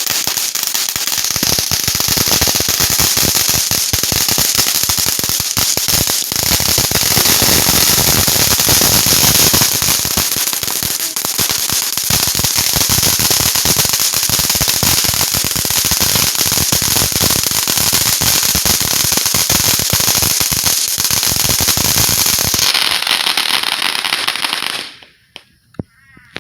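Consumer fireworks going off in a long, continuous run of rapid crackling pops, cutting off suddenly near the end.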